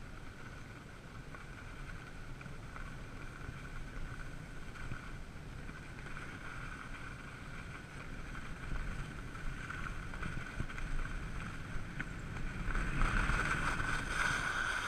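Skis running over groomed, packed snow with wind buffeting the body-worn camera's microphone. Near the end a louder scraping hiss as the skis turn sideways to a stop.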